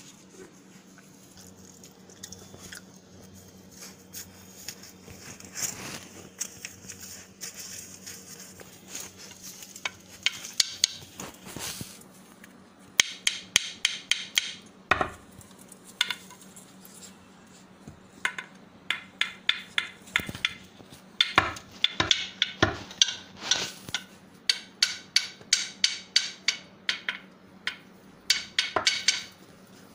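Stick knocking and scraping on a hard tiled floor: sharp irregular clicks, sparse at first, then coming in quick clusters from about halfway through.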